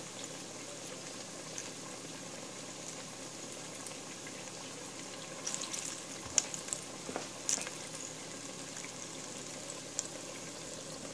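Hot vegetable oil sizzling and bubbling steadily around two fried pies deep-frying in a pot, with a few sharper pops and crackles in the middle.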